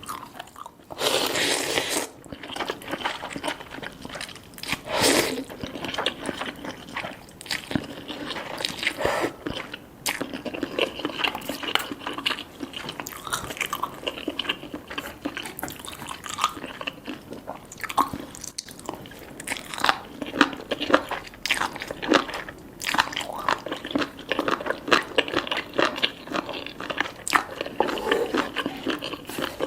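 Close-up eating sounds of cheesy spicy Korean noodles with soft-boiled eggs: chewing and biting, with many small wet clicks and crunches. A louder burst comes about a second in, and another near five seconds.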